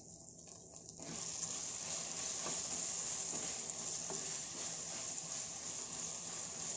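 Okra frying in oil in a clay pot, sizzling steadily while a wooden spatula stirs and scrapes it. The sizzle grows louder about a second in and then holds.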